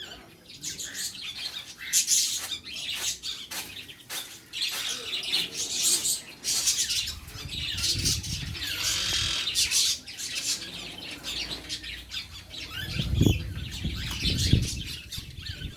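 Several birds chirping and squawking in quick, overlapping calls, with a couple of low thumps near the end.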